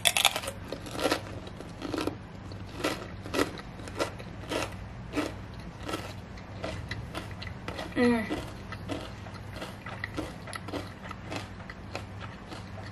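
Close-up crunching and chewing of a cracker topped with cheese, salami and a grape, a crisp crunch every half second to second that thins out as it is eaten. A brief vocal sound comes about eight seconds in.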